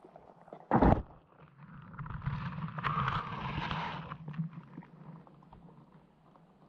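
Muffled underwater audio from a GoPro in its waterproof housing: a loud knock just under a second in, then a rushing hiss that swells from about two seconds and fades by about five, over a low steady hum.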